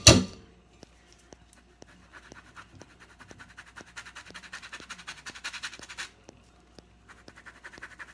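Handheld metal grater rasping the peel of an orange to zest it: quick scraping strokes, several a second, loudest in the middle and fainter toward the end. A sharp knock comes right at the start.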